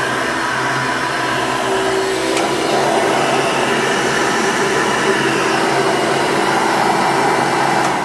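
Hoover Elite II upright vacuum cleaner running steadily and loud at full speed, then switched off at the very end and beginning to wind down.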